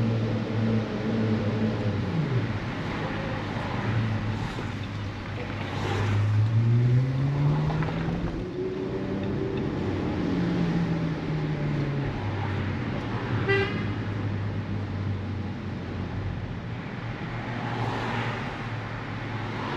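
Pagani Zonda F's Mercedes-AMG V12 running ahead in traffic. Its pitch rises steeply as it accelerates about five seconds in, then falls back as it eases off. A short car-horn toot sounds near the middle.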